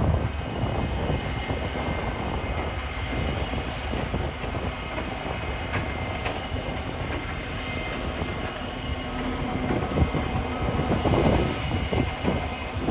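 Diesel engines of heavy road-construction machines (a large road reclaimer, a compact track loader and a roller) running steadily, with rattling and clanking and a sharp knock about ten seconds in.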